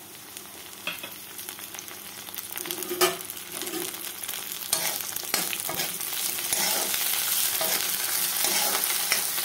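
Onion, garlic, curry leaves, chillies and bay leaf frying in hot mustard oil in a kadhai, sizzling while a spatula stirs and scrapes them. The sizzle grows louder in the second half, and there is one sharp knock about three seconds in.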